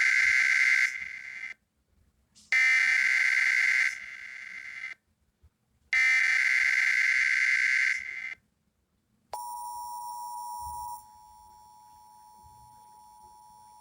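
Emergency Alert System SAME header: shrill warbling digital data bursts, the tail of one and then two more, each separated by about a second of silence. After that comes the steady EAS attention tone, which drops in level a couple of seconds later. The sequence signals the start of a monthly test alert.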